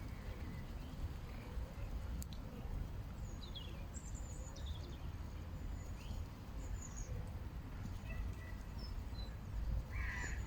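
Faint high bird chirps, short falling notes every second or two, over a steady low outdoor rumble. A louder, lower call comes in near the end.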